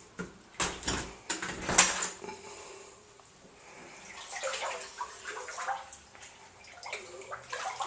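Floodwater splashing and sloshing in a flooded house. A run of loud splashes comes in the first two seconds, then softer, irregular sloshing.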